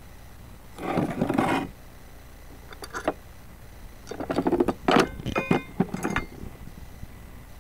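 Metal parts of a replacement van sliding-door roller assembly being handled and fitted, heard as a short scrape about a second in and then a cluster of clinks and clicks in the middle.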